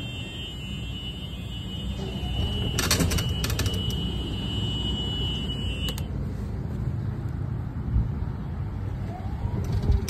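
Electric Club Car golf cart backing up, its reverse warning buzzer giving a steady high tone that stops about six seconds in, over the low rumble of the cart rolling, with a few clicks about three seconds in.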